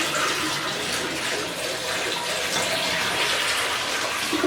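Water poured into a toilet bowl, rushing steadily, to force most of the remaining water out of the bowl and down the drain.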